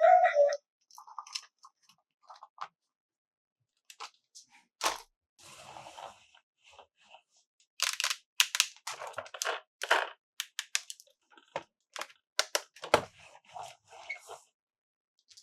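Plastic toy parts and packaging being handled, giving scattered clicks and short crinkly crackles.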